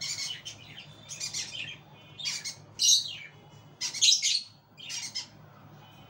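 Small pet parrots, a ringneck parakeet and a cockatiel, giving short high chirps and squawks, about six calls spaced roughly a second apart.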